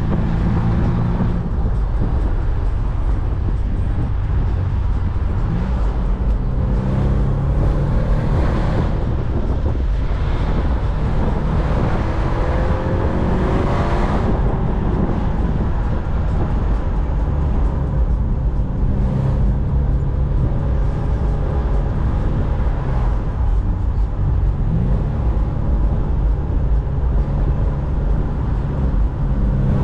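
BMW Z4's engine running while the car is driven, heard with steady road and wind noise; the engine note rises and falls several times, climbing most plainly around the middle.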